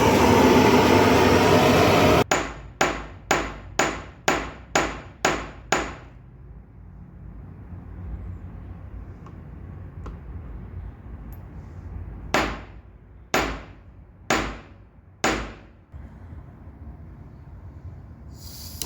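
A steady loud rushing noise cuts off about two seconds in; then a small hammer strikes metal eight times in quick succession, each hit ringing briefly. After a pause come four slower strikes about a second apart.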